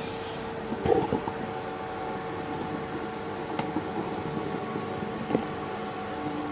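A steady electrical hum with a fixed whining tone, with a few small clicks and handling knocks: a cluster about a second in, then two single ones later.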